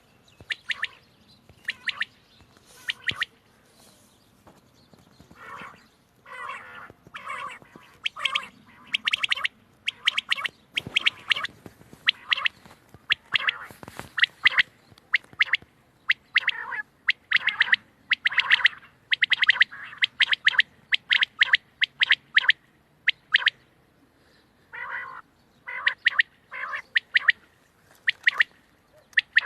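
Quail calling: short, sharp calls repeated in quick runs, with a brief lull a little after the middle.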